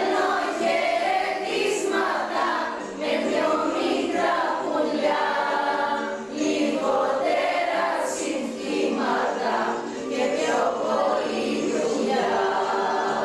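A group of women singing a song together.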